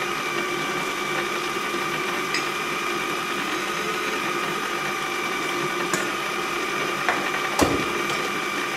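Electric stand mixer running steadily with an even motor hum as its beater whips egg yolks and sugar in a stainless steel bowl. There are a few light clicks, and a sharper knock near the end.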